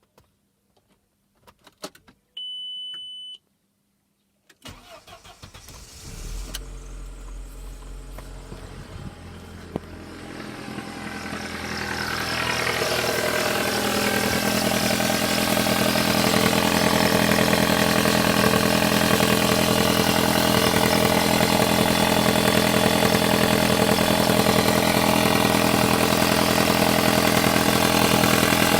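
A few clicks and a short beep, then a Volkswagen Passat B5+'s AWM 1.8-litre turbo four-cylinder engine cranks, starts and settles into a fast warm-up idle that gets louder about twelve seconds in and then holds steady. A knock from around the turbocharger at these warm-up revs is what the owner is chasing.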